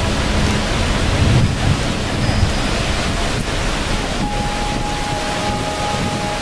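Steady roar of rushing water, an even hiss across all pitches with a low rumble underneath.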